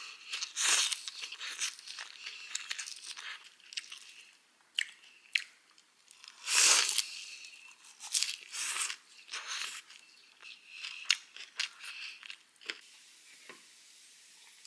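Close-up chewing and crunching of a mouthful of bún bò nam bộ noodle salad: raw lettuce, herbs, carrot and rice noodles. It comes in many crisp, irregular crunches, the loudest about halfway through, and the crunching dies away near the end.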